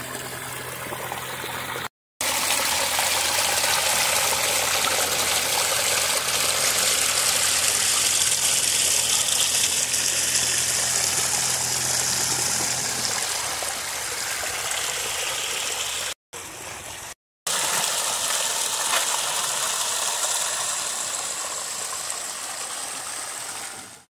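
Water splashing steadily down a small rock waterfall into a garden pond, with a low steady hum beneath it that stops about halfway through. The sound cuts out abruptly for a moment about two seconds in and twice more near the two-thirds mark.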